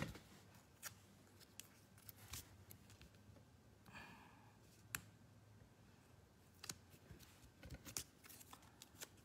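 Near silence with a few faint, scattered taps and a soft rustle about four seconds in: cardstock pieces being handled and pressed onto a paper page.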